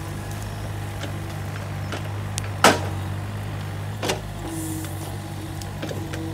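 Takeuchi TB135 mini excavator's diesel engine running steadily as the machine works, with a loud sharp knock about two and a half seconds in and a smaller one about four seconds in.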